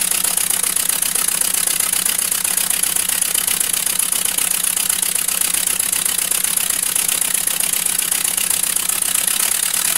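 Scratch-built two-cylinder, double-acting oscillating (wobbler) model engine running fast on compressed air at about 20 pounds, with a steady, rapid, even beat.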